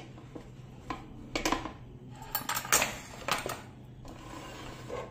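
A few short clatters and knocks of kitchen utensils and cookware being handled, over a faint steady hum.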